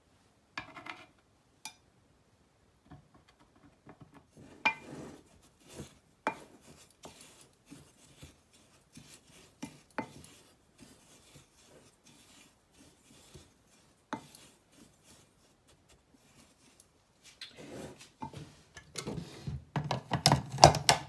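Wooden spatula stirring and scraping a dry ground spice blend in a glass measuring jug, with scattered light clinks against the glass. Near the end, a louder run of knocks and rattles as the jug and a stainless-steel spice grinder are handled.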